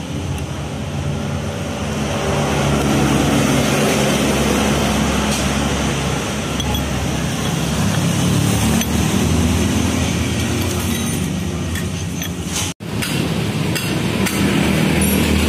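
Metal knocks and clinks as an old shock absorber shaft is used as a drift to drive a worn swingarm bushing out of a Honda Vario scooter's engine case, over a steady low rumble. The sound cuts out for an instant about 13 seconds in.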